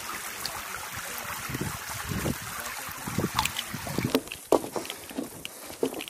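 Shallow stream water running over rock, with wind on the microphone. From about three seconds in, irregular footsteps knock on a wooden boardwalk.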